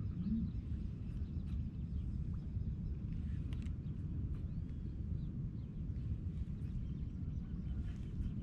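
Outdoor ambience on open water: a steady low rumble with faint distant bird calls and a few soft ticks.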